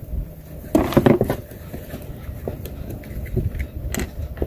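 Hard clatter and clicks of small tools and plastic tracker parts being handled and set down, with a short burst of rattling about a second in and a few single clicks after, over a steady low wind rumble.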